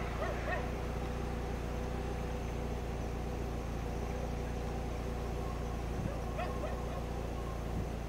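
Steady drone of distant engine noise with a low hum beneath it. A few short, faint calls come about half a second in and again about six seconds in.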